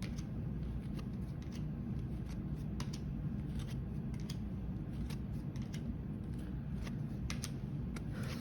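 Hockey trading cards being handled and flipped through, making scattered soft flicks and clicks of card stock, over a low steady hum.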